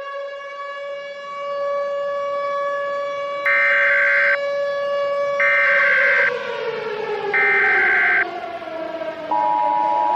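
Civil defense siren wailing: its pitch rises, holds steady, then falls and starts to rise again. Three short bursts of Emergency Alert System SAME header data tones sound over it, about a second apart, and near the end the steady two-tone EAS attention signal begins.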